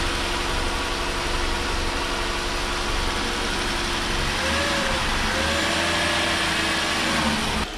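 2012 Jeep Wrangler's 3.6-litre Pentastar V6 idling steadily with the hood open, warming up on its first run after an engine oil cooler replacement.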